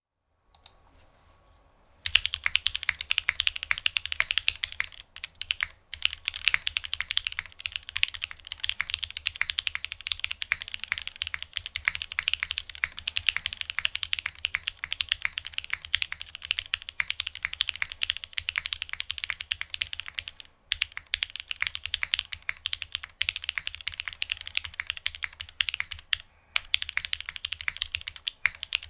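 Continuous fast typing on a Geonworks F1-8X mechanical keyboard with an aluminium plate, lubed and filmed retooled Cherry MX Black linear switches with Kailh black stems, and Hammerworks CRP R3 keycaps. A dense run of keystrokes starts about two seconds in and breaks off for a moment three times.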